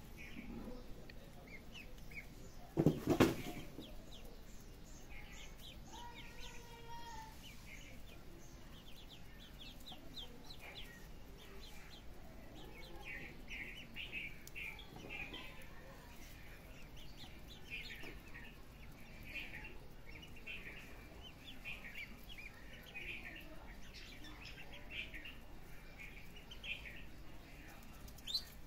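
Ducklings peeping: many short, high chirps from the group, busier in the second half. One loud thump about three seconds in is the loudest sound.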